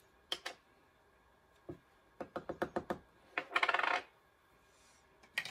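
Plastic jar of loose mineral powder foundation being opened and handled, with the powder tipped into its lid. A couple of light clicks come first, then a dull tap, a quick run of about eight clicks about two seconds in, and a short rattling shake about halfway through.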